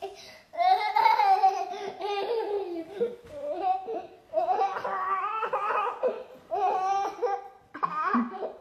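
Toddler laughing and giggling in several high-pitched bursts while a puppy tickles her.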